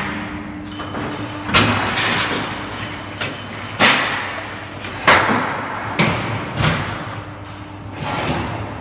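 Hydraulic concrete block making machine at work: a steady low motor hum under about five loud, irregular metal clanks and thuds as the machine's parts move and strike.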